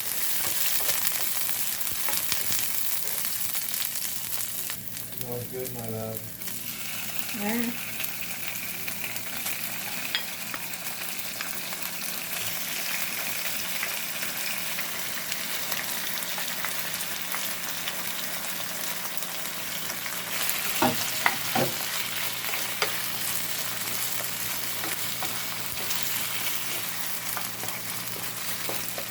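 Shrimp and bell pepper stir-frying in a hot pan: a steady sizzle with stirring. A few sharp knocks come about three-quarters of the way through.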